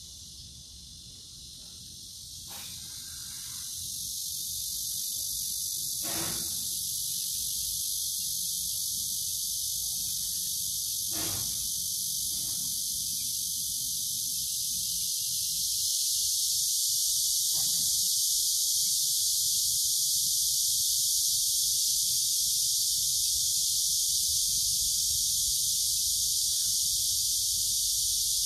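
Insect chorus outdoors: a steady, high buzzing that swells a few seconds in and again about halfway through, with a few faint short taps or rustles.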